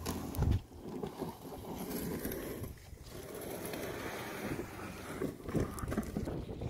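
Wind buffeting the microphone, with a loud thump about half a second in and a few lighter knocks as gear is handled in a canoe and a kayak.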